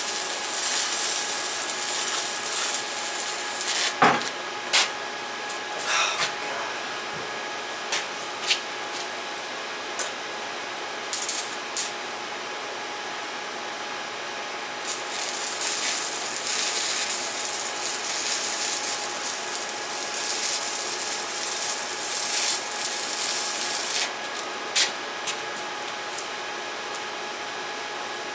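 Stick-welding arc on thin 1/16-inch exhaust pipe, a small electrode at about 35 amps, crackling and hissing in two runs: about the first four seconds, then again from about fifteen to twenty-four seconds. Between the runs come scattered sharp clicks and taps, the loudest about four seconds in.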